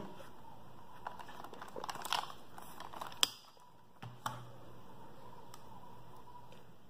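Handling noise from OEX HP-100 plastic headphones and their orange cable being picked up and turned in the hands: faint rustles and small plastic clicks, with one sharp click a little over three seconds in and two lighter clicks about a second later.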